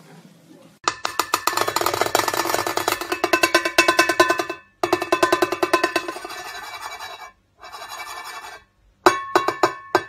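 A sulphur-crested cockatoo beating a cymbal with its beak: rapid metallic taps with the cymbal ringing, in runs broken by short pauses, then a few separate louder strikes near the end.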